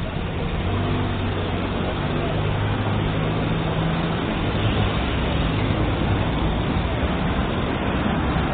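Steady road-traffic noise, with the low hum of a vehicle engine running close by.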